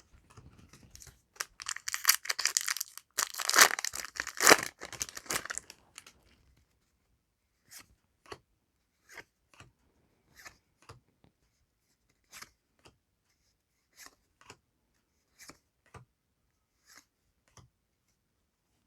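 A trading card booster pack's foil wrapper is torn open with crinkling for a few seconds. Then the cards are flicked through one at a time, giving light clicks and snaps about once or twice a second.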